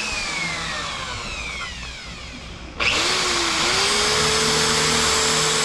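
Electric drill slowing down with a falling whine after a short burst. It is started again just under three seconds in, speeds up and runs at a steady pitch.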